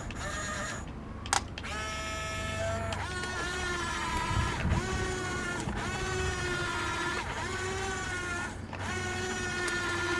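Electric gear motors of a Huina 15-channel RC excavator whining in short runs as the boom, arm and bucket are worked. Each run stops and restarts every second or two, shifting pitch with the load, with a sharp click about a second in.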